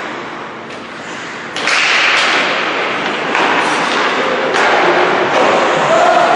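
Ice hockey play against the rink boards: three sudden thuds, each followed by a second or so of scraping noise, as pucks and players hit the boards and skates dig into the ice.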